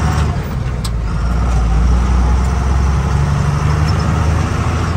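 Truck engine running under way with road noise, a steady low rumble, and one brief click about a second in.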